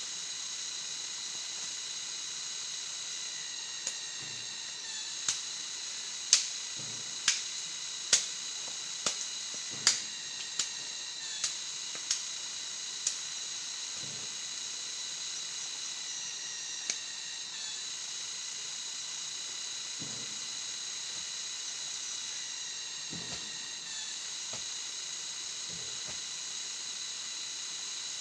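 Steady high-pitched drone of forest insects, several fixed pitches at once. About ten sharp clicks come at roughly one a second in the first half, with a few dull low knocks throughout.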